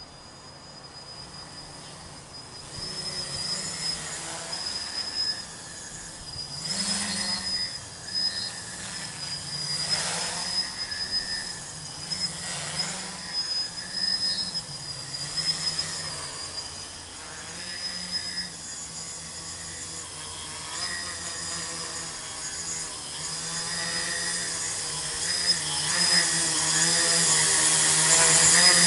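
A tricopter's three brushless outrunner motors (2216 size, 900 kV) spinning 8x4.5 carbon-fibre props in flight. The buzzing whine wavers up and down in pitch as the throttle changes, and grows louder over the last several seconds as the craft comes close.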